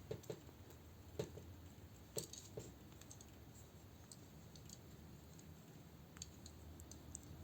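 Faint, scattered clicks and taps of plastic Transformers figure parts being folded and handled, a few sharp ticks spread over several seconds.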